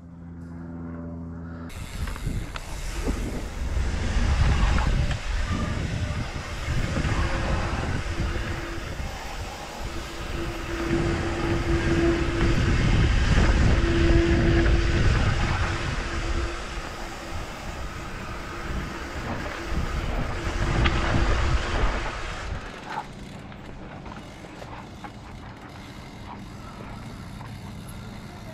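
Mountain bike rolling fast down a steep dirt trail: tyre rumble and the rattle of bike and gear over rough ground, with a steady tone coming and going. It starts about two seconds in and eases off to a quieter hum about 22 seconds in.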